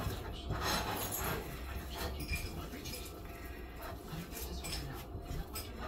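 Hands pressing and patting raw ground beef into a burger patty on a paper plate, making soft, irregular squishing pats.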